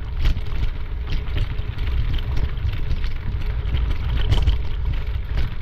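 Wind buffeting a moving camera's microphone as a low, steady rumble, with faint, irregular footfalls on a rocky dirt trail.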